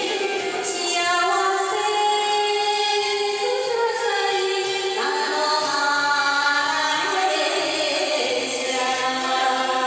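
A woman singing a Japanese enka song into a microphone over a karaoke backing track, holding long notes.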